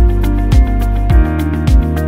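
Instrumental background music with a steady beat, a little under two beats a second, under held notes.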